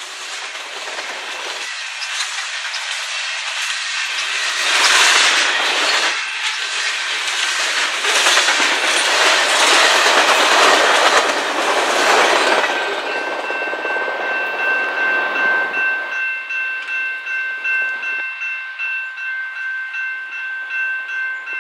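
Freight cars rolling past, steel wheels clacking over the rail joints: loudest midway, then fading as the last cars go by. After that comes an evenly pulsing ringing, typical of a level crossing warning bell still sounding.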